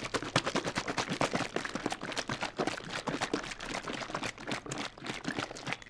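A green plastic tub of water and slime powder shaken hard by hand: a rapid, irregular run of sloshing knocks as the powder is mixed into the water to form slime. It cuts off suddenly at the end.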